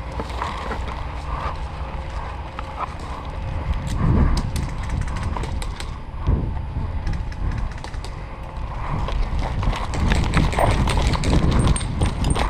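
Footsteps and jostling gear of a player on the move, uneven knocks and clicks over a low rumble of handling and wind on a body-worn camera's microphone, louder around four seconds in and again near the end.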